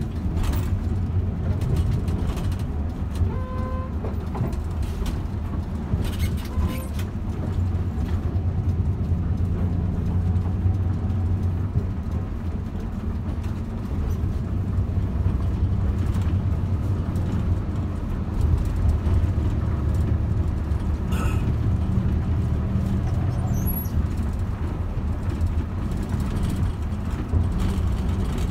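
Intercity bus cruising in traffic, heard from inside at the front: a steady low engine and road rumble, with a few brief clicks.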